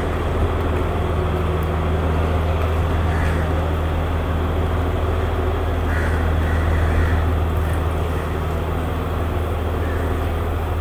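Diesel engine of a stationary diesel multiple-unit passenger train idling at the platform, a steady low drone that holds its level without change.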